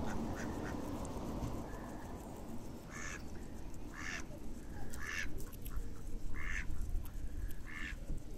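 A duck quacking five times, about once a second, starting about three seconds in, over a steady low rumble.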